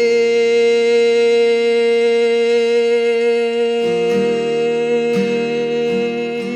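Worship song ending: a voice holds one long sung note over acoustic guitar. About four seconds in, the guitar chord changes and strumming picks up beneath the note.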